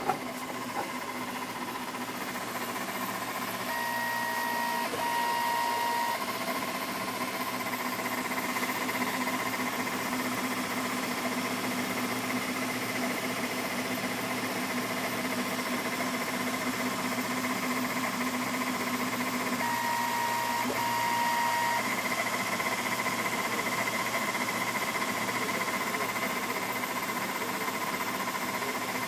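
CNC laser engraver running a grayscale raster engrave: the stepper motors hum and whine as the laser head scans back and forth. A higher whine comes in twice for a couple of seconds and then holds through the last third. There is a sharp click at the very start.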